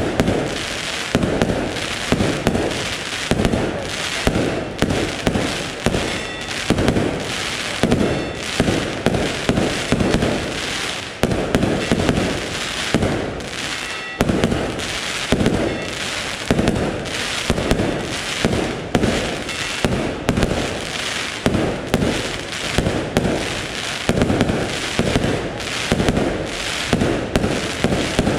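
Aerial firework shells bursting in quick succession, a steady run of loud bangs roughly one or two a second.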